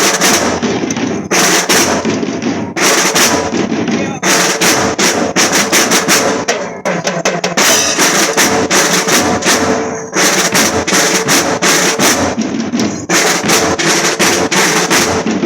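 School marching drum band playing a steady percussion cadence of rapid drum strokes, in repeated phrases broken by short pauses every few seconds.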